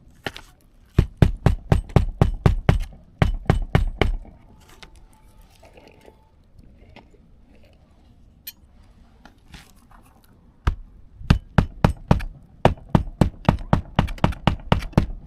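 Hammer driving roofing nails into asphalt shingles: two runs of rapid blows, about four a second, with a pause of several seconds between them.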